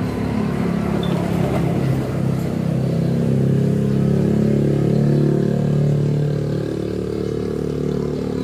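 A motor vehicle engine running steadily, swelling a little louder and shifting in pitch around the middle.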